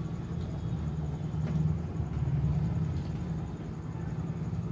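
Low, steady background rumble, with a faint click about one and a half seconds in.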